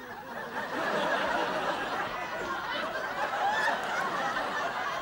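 Studio audience laughing, a crowd of many voices building in the first second and carrying on steadily.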